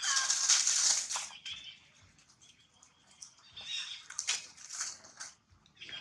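Monkeys screaming while they fight a dog: a loud, harsh scream for the first second or so, then shorter high-pitched shrieks around the middle and again near the end.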